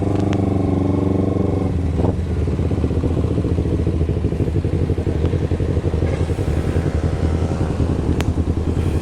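Carbureted Kawasaki Ninja 250 parallel twin running loud through a Termignoni megaphone exhaust on the move, its note rising and falling a little with the throttle. A single sharp click comes near the end.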